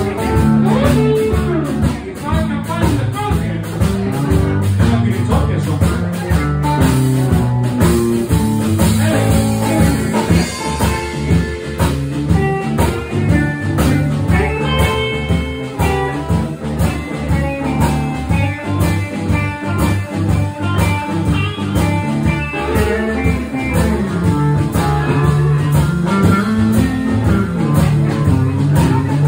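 Live band playing a blues number, led by guitars over a low bass line.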